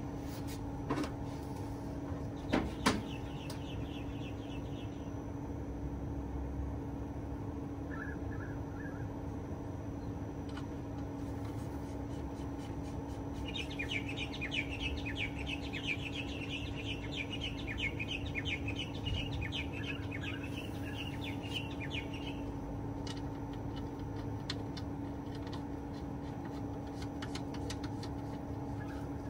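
A bird's rapid chattering trill of quickly repeated high notes, heard briefly a few seconds in and again for about nine seconds in the middle, over a steady mechanical hum.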